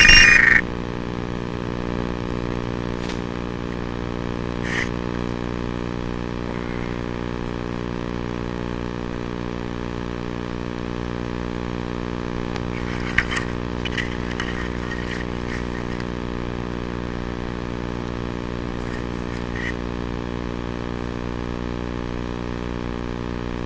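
FPV racing quadcopter's brushless motors: a loud high whine cuts off about half a second in. The motors then spin on steadily at low throttle with an even hum, and a few faint clicks sound here and there.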